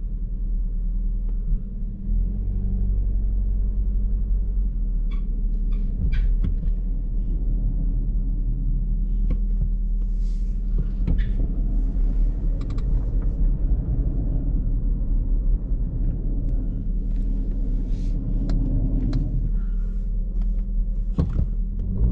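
Vehicle running with a steady low rumble, with scattered clicks and knocks throughout and a cluster of them near the end.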